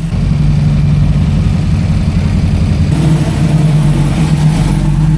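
A car engine idling loudly and steadily, its sound growing a little fuller about three seconds in.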